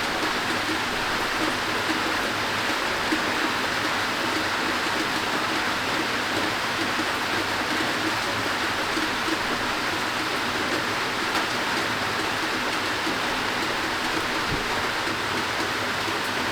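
Steady rain falling from a thunderstorm downpour: an even hiss of rainfall with no change in strength.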